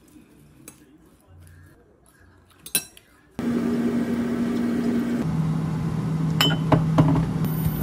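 Metal chopsticks lightly clinking against a glass bowl while tossing shredded cabbage salad, with one sharper clink. About three seconds in, a loud, steady kitchen fan noise with a low hum starts suddenly, and its hum drops in pitch partway through. A few light clinks sound near the end as oil is poured into a frying pan.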